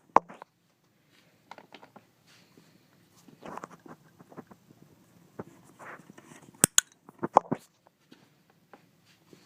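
Sharp plastic clicks of a wall light switch and a dog-training clicker: a quick pair about six and a half seconds in and a short cluster just after, with faint scuffling as an Australian Shepherd mouths the switch. The clicks mark the moments the dog works the switch with his mouth.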